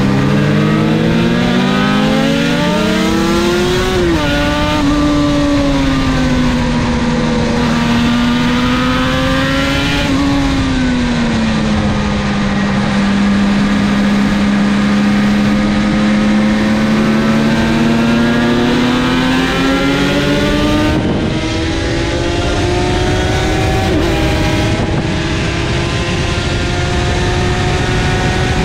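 Two-stroke sport motorcycle engine with Martin Johnson expansion-chamber pipes, heard on board at race pace. The revs climb, drop sharply about four seconds in, hold fairly level through a long bend, then climb steadily again over the last third.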